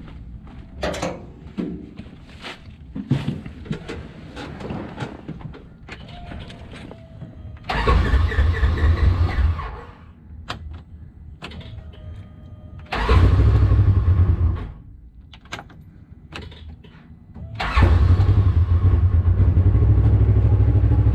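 Polaris RZR XP 1000 parallel-twin engine started three times: the first two times it runs for about two seconds and stops, and the third time it catches and keeps idling steadily. The engine has misfire codes for cylinder 2, traced to low fuel pressure from a failing fuel pump.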